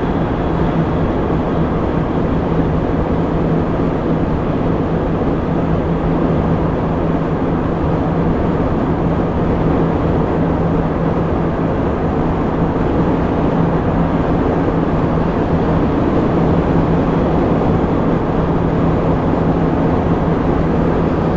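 Steady road and engine noise inside a moving car's cabin, with a constant low hum.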